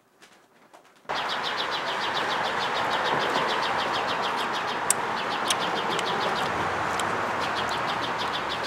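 Birds chirping in quick, regular runs over a steady outdoor hiss, starting abruptly about a second in, with a few sharp clicks.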